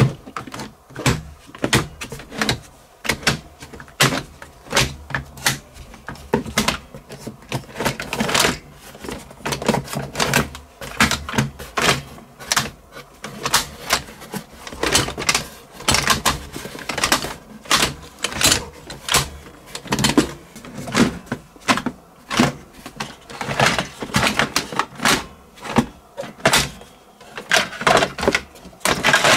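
Plastic toy and airsoft guns clattering and knocking against one another in a cardboard box as a gloved hand rummages through them: an unbroken run of irregular clicks and clacks.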